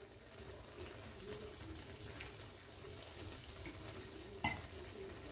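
Faint kitchen sounds around a pan: quiet clinking and rustling, with one sharp click about four and a half seconds in.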